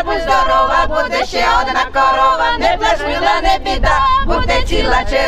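A small women's folk choir singing a song unaccompanied, several voices together on held, wavering notes.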